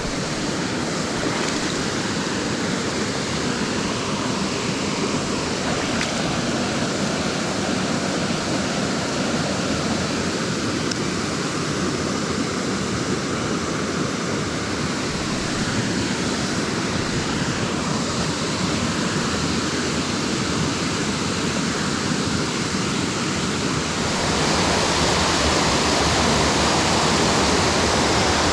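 Mountain stream rushing over rocks and small cascades, a steady full rush of water. It grows louder and brighter about three-quarters of the way through.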